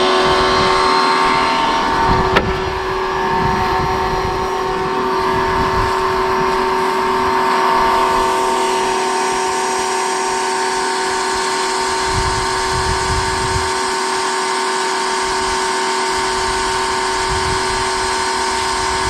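Greenworks electric pressure washer running under load with the trigger held: the motor and pump give a steady whine over the hiss of the water spray. A single sharp click about two seconds in.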